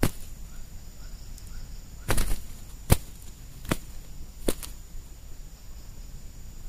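Spotted doves fighting, their wings striking in sharp slaps: one at the start, a quick cluster about two seconds in, then single slaps less than a second apart.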